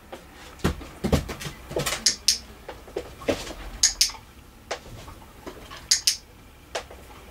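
A dog's feet knocking and clicking on a hollow aluminium case as it steps up onto it and shifts about, with a few heavier thuds about a second in. Sharp high clicks, several in close pairs, come later on.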